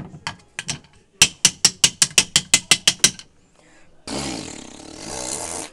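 Rapid chopping strikes on a wooden cutting board, about four or five a second for three seconds, fainter at first: lettuce being chopped. After a short pause, a rushing noise lasts about a second and a half.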